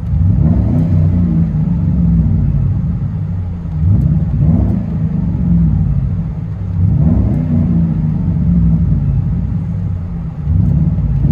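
2000 Mercury Grand Marquis 4.6L V8 revved four times in park, heard from inside the cabin. Each rev rises and falls back toward idle, about every three seconds, through a 2.25-inch true dual exhaust with Vibrant bottle resonators.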